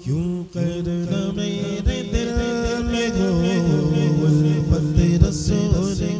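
A man singing an Urdu naat unaccompanied through a microphone, drawing out long bending notes over a steady low drone.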